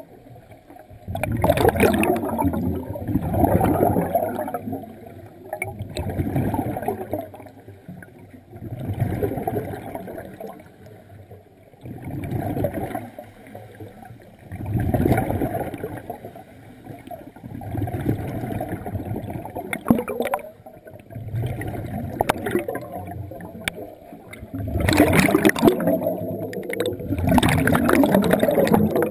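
Scuba regulator breathing heard underwater: a rumbling gurgle of exhaled bubbles that swells and fades every few seconds, louder and longer near the end as bubbles stream past.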